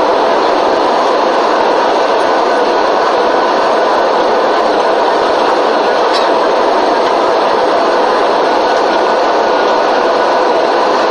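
Steady rushing cabin noise inside an airliner, engines and airflow making an even, unbroken noise with no change in level.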